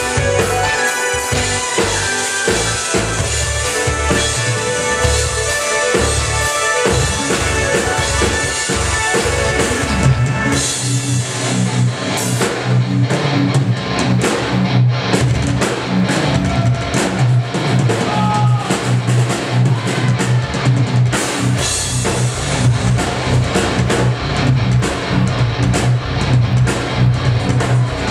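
Progressive metal band playing live: distorted electric guitar, bass guitar and a drum kit. About ten seconds in the music shifts to a heavier section with a strong, steady low bass line under busy drumming.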